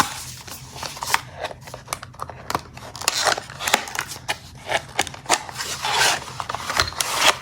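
A product box and its packaging being opened by hand: a string of short clicks and scrapes, with a few longer rustles of cardboard and wrapping.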